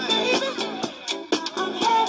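Background dance music with a steady drum beat, several strokes a second, under a sustained melody line.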